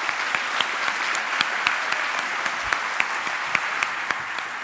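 A large audience applauding steadily, a dense patter of clapping with single louder claps standing out.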